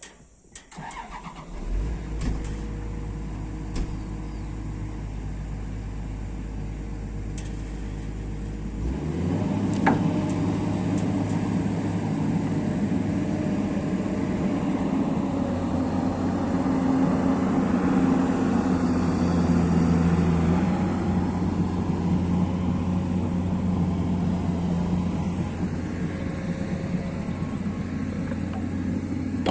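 An amphibious excavator's diesel engine starting about a second in and running at a low steady idle, then stepping up to a higher engine speed about nine seconds in and running on there.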